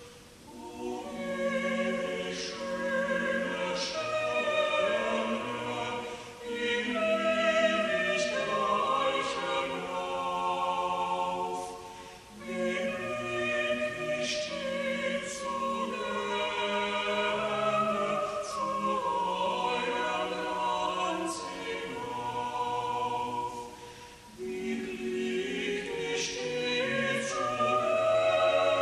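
Church choir singing a German sacred song in long phrases, with brief breaks between phrases about every six seconds.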